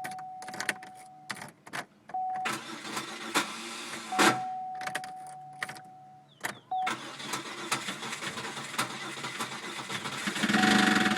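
Warning chime sounding on and off with clicks, then the 2001 Chevy Malibu's 3.1 L V6 starts about seven seconds in and runs with a rapid ticking knock that gets louder near the end. The knock comes from a failing engine that was later found to have a broken-up piston, which the owner blames on a dropped valve seat.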